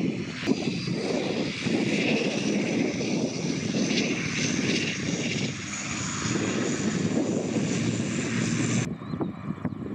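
Air New Zealand ATR 72-600's twin turboprop engines and propellers running loudly and steadily. The sound cuts off abruptly about nine seconds in, leaving quieter outdoor sound with a few short chirps.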